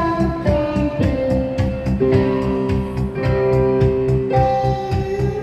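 Live band music: electronic keyboard with a drum kit playing a steady instrumental passage of a children's song, with held melody notes over a regular beat and strong low notes underneath.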